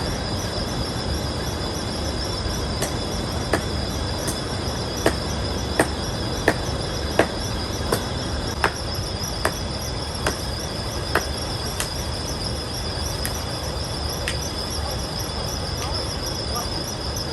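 Chopping into a tree trunk: a steady series of sharp blade strikes, about one every 0.7 seconds, fading out near the end. Behind them runs a continuous high-pitched drone of insects.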